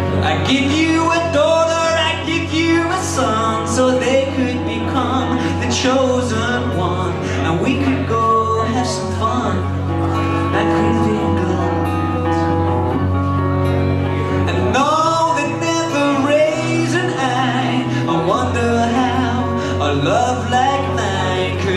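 A man singing live with his own acoustic guitar: held, strummed chords under a sung melody that slides and bends between notes. The guitar's chord changes about two-thirds of the way through.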